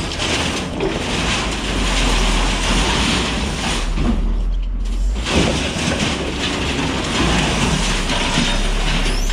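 Knuckle-boom grapple truck's hydraulic crane working a heavy pull, the engine running under load with a steady hydraulic hiss that drops out briefly about halfway through as the lever is eased, then comes back.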